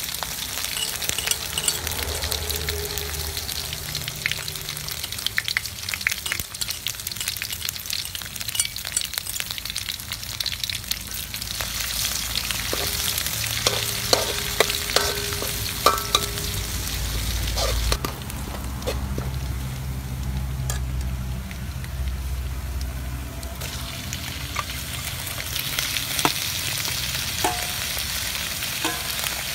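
Oil sizzling in a steel wok as chopped garlic and aromatics are stir-fried, with a metal spoon scraping and clinking against the pan. Near the end pieces of snake meat are in the wok and the sizzle grows louder.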